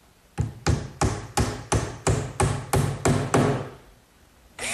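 Claw hammer driving 5-penny nails through a thin lauan plywood back panel into a pine frame: about a dozen quick, sharp strikes, roughly four a second, that stop about three and a half seconds in.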